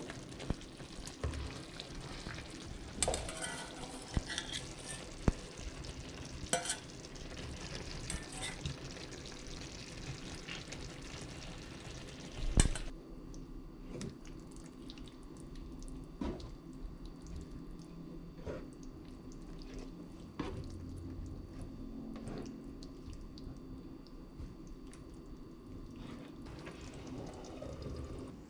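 Eggplant in tomato sauce sizzling in a stainless steel frying pan while a spatula stirs it, clicking and scraping against the pan. A little before halfway there is one sharp knock, after which the sizzle drops to a much quieter simmer with occasional clicks of the spatula.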